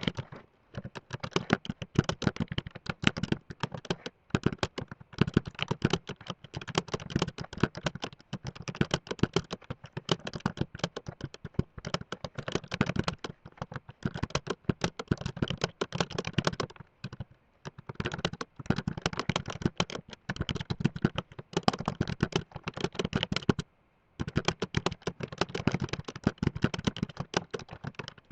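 Fast typing on a computer keyboard: a rapid, continuous patter of key clicks, broken by a few brief pauses, two of them in the latter half.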